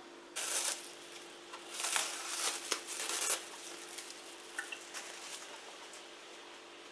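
Plastic cling film being peeled off a glass bowl: crinkly rustling in a short burst near the start and a longer one about two seconds in, followed by a few light clicks.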